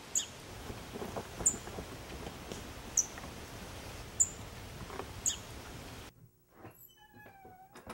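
A bird's short, high chirp repeated about every second and a half over steady outdoor hiss, with some faint rustling; the outdoor sound cuts off about six seconds in.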